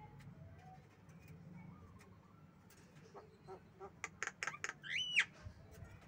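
Javan mynas calling: a quick run of sharp, clicking notes from about three and a half seconds in, ending near five seconds with a loud, short note that rises and falls in pitch.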